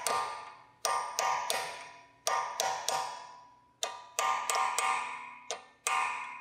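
A hammer striking a drift punch held against a new CV axle nut, staking the nut's collar into the slot in the axle. About a dozen sharp metallic hits, each ringing briefly, come in groups of three or four with short pauses between.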